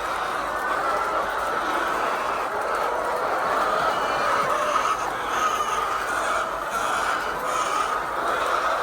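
A large flock of hens clucking and chattering together in a steady, continuous din.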